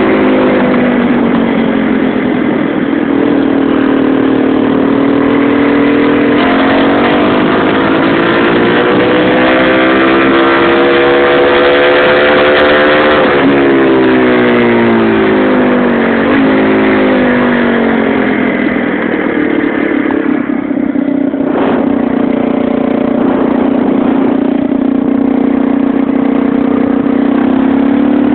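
Small single-cylinder motorcycle engine running, its pitch rising and falling several times as the throttle is opened and closed. In the last third it settles to a steady low note.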